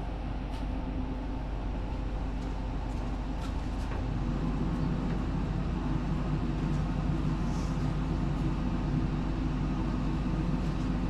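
A steady low motor hum, getting a little louder about four seconds in, with a few faint light clicks as chicken legs are laid on a hot grill.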